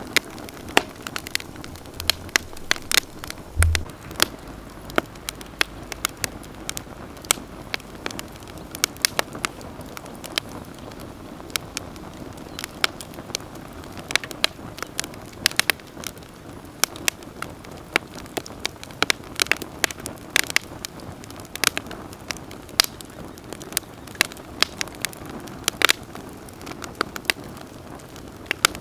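Wood campfire crackling, with frequent sharp, irregular pops and snaps over a soft hiss of the burning logs. A brief low thud shows about three and a half seconds in.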